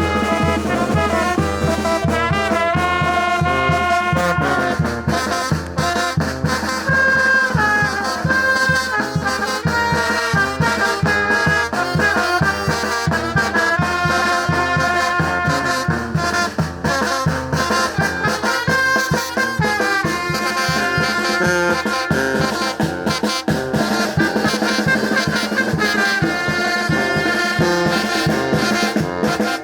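Mexican brass banda playing a chilena: trumpets and trombones carry the melody over a steady percussion beat.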